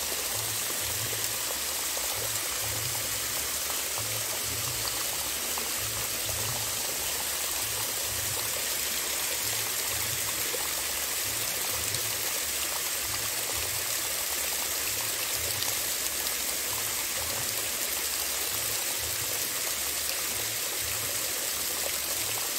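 Water of a small stream spilling over a low stepped concrete weir and flowing, a steady wash of falling water.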